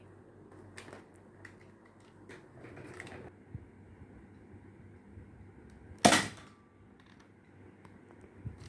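Nerf dart blaster firing once about six seconds in: a single sharp crack that dies away within a fraction of a second. Several lighter clicks and a short rasp of handling come in the first few seconds.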